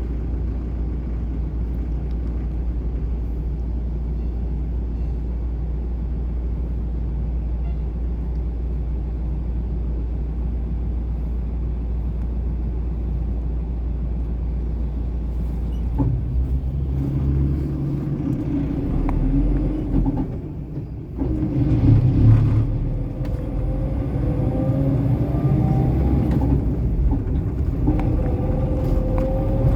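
Car engine and road rumble heard from inside the cabin: a steady low drone for the first half, then a change about halfway through as the car pulls away, with the engine's pitch rising as it accelerates.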